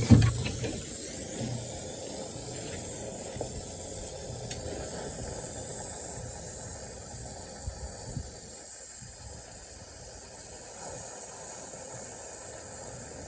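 Brazing torch flame hissing steadily while heating metal, with a short low bump right at the start.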